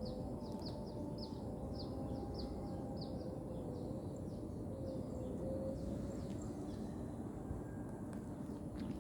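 A small bird calling: a series of short, high chirps, each sweeping downward, about two to three a second, fading out a little past the middle. Steady background noise runs underneath.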